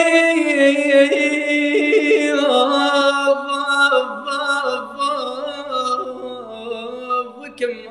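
A single voice singing Arabic melody, apparently unaccompanied. It holds one long high note for about two and a half seconds, then moves on through a wavering, ornamented line.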